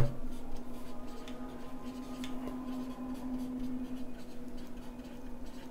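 Marker pen writing on a whiteboard: faint, short scratchy strokes as words are written. A steady low hum sits underneath.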